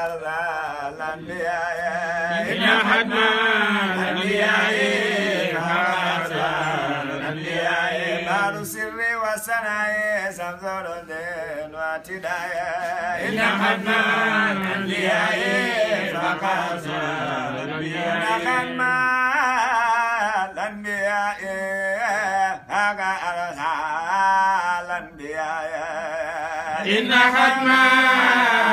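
Men's voices chanting a devotional song in long, wavering phrases with no instruments.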